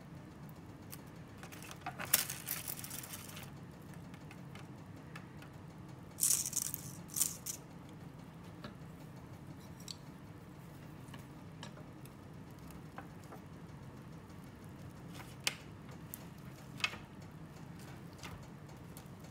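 Handling of a disposable aluminium foil tray with a fork: two short bursts of crinkling, rattling foil, then two sharp clicks of the fork against the tray, over a steady low background hum.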